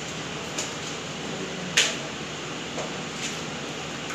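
Serving spoons, tongs and plates clicking and knocking lightly as food is dished out, a few separate clicks with the sharpest about two seconds in, over a steady background hum.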